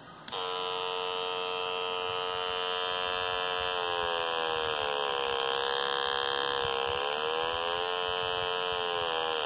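Electronics-kit speaker giving a steady buzzing tone from a transistor oscillator circuit built to imitate an old airplane. It switches on abruptly just after the start, and its pitch sags and rises a few times as the variable resistor is turned.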